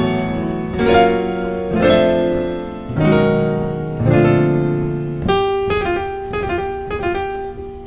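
Piano playing a slow progression of jazz extended chords (major sevenths, 6/9 voicings), one chord about every second, each left to ring and fade. In the last couple of seconds come quicker single notes over a held chord.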